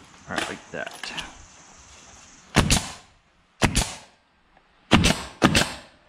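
Pneumatic nail gun firing four shots, fastening a trim board; the last two come about half a second apart.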